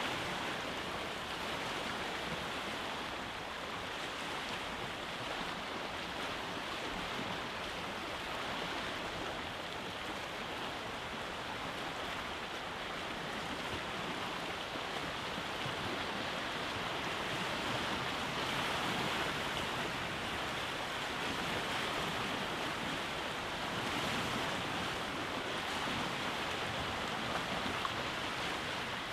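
Sea waves washing onto a rocky beach: a continuous rush of surf that swells and eases slowly every several seconds.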